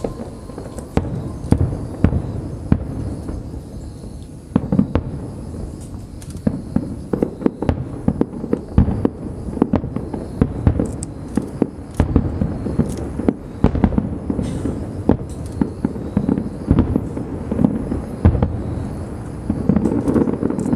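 Aerial fireworks display: a rapid, dense string of shell bursts and booms with some crackling, growing busier near the end.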